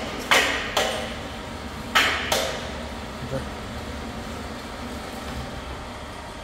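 Four sharp metallic knocks in two close pairs within the first two and a half seconds, over a steady low hum, as the stand stirrer's motor arm is lowered on its hand winch.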